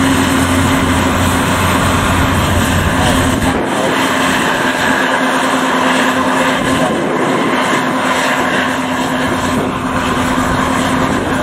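Yanmar YH850 rice combine harvester running steadily under load, a loud continuous diesel engine and threshing-machinery drone with a constant hum; the deepest rumble drops away about three and a half seconds in.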